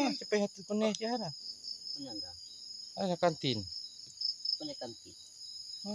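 A steady high-pitched chorus of night insects, crickets, keeps up throughout. Voices break in with short bursts of talk several times.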